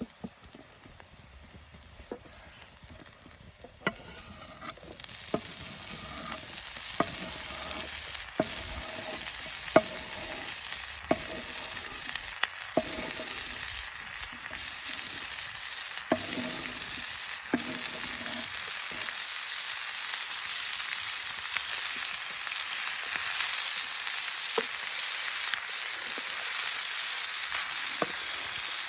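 Food frying in hot oil in a pan, the sizzle jumping up loudly about five seconds in and then running on steadily. Through the first half a spoon or spatula knocks and scrapes against the pan as the food is stirred.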